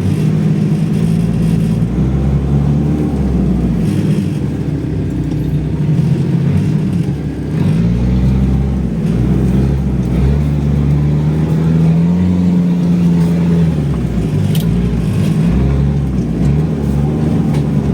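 A 4x4 off-road vehicle's engine working under load, its revs rising and falling again and again as it is driven over rough ground. There is one short knock about three-quarters of the way through.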